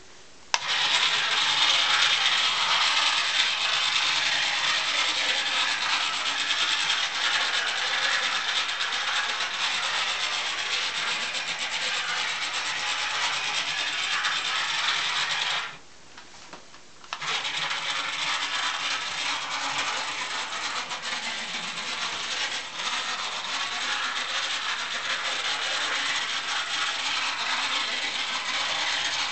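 Drive motor and gearing of a radio-controlled O-scale Kyoto streetcar model running steadily. It stops for about a second and a half a little past halfway, then runs on.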